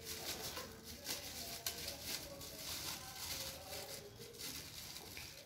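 Faint rustling and crinkling of a small plastic bag as powder is poured into it and mixed, with one sharp click about one and a half seconds in.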